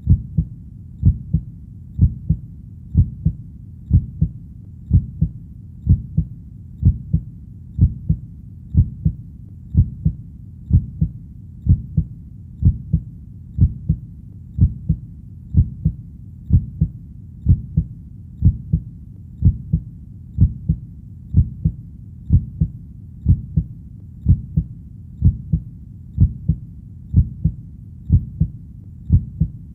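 A heartbeat sound: a steady rhythm of paired low thumps (lub-dub), about one heartbeat a second.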